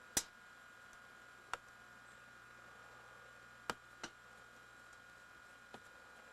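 Quiet room tone with a steady faint electrical hum, broken by five sharp clicks, the first one the loudest.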